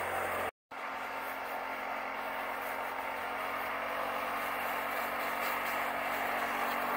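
Small Harbor Freight Predator engine of a homemade track sled running steadily as the sled drives over snow, heard from a distance. The sound cuts out completely for a moment about half a second in.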